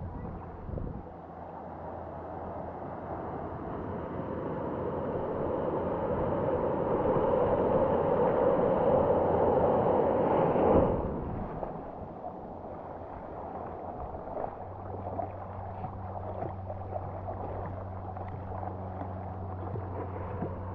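Ocean water rushing and splashing around a surfer and a helmet-mounted GoPro while surfing small waves. The rush swells over several seconds and cuts off abruptly about eleven seconds in, leaving a softer wash of water.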